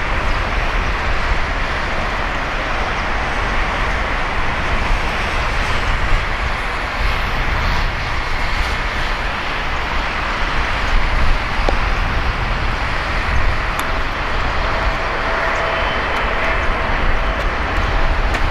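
Boeing 777-300ER's GE90-115B jet engines on final approach, a steady jet noise with a low rumble, and a faint whine coming in over the last few seconds as the aircraft nears.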